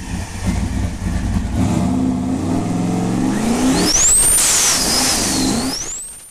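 Car engine revving up, its pitch climbing, then a high whistling whine that sweeps up, dips and rises again before the sound fades out near the end.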